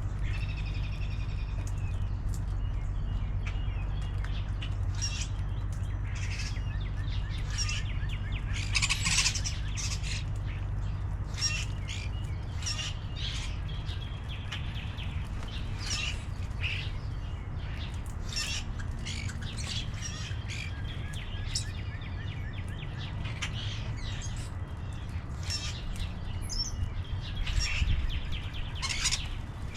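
Wild birds chirping and calling in many short notes throughout, over a steady low rumble.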